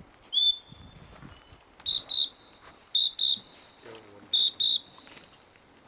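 Dog whistle blown in short, shrill, steady toots. A single toot comes first, then three quick double toots about a second apart.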